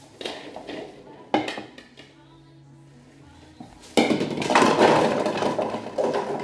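A thump about a second and a half in, then about four seconds in a set of light-up toy bowling pins is struck and knocked over, clattering loudly for a couple of seconds.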